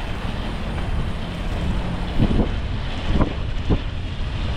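Wind rushing over the microphone of a bicycle coasting downhill, a steady rushing noise, with a few short knocks a little after two seconds in and twice more over the next second and a half.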